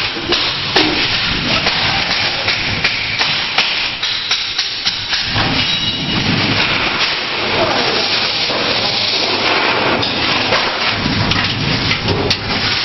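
Spot welder working on sheet steel: many sharp snaps over a loud, steady noise.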